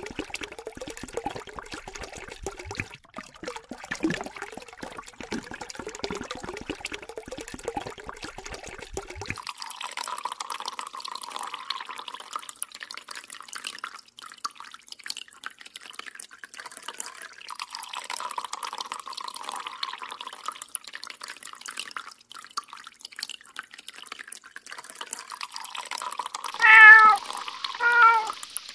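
A cat meows twice near the end, two short falling calls, over a thin trickle of water running from a kitchen tap's filter attachment.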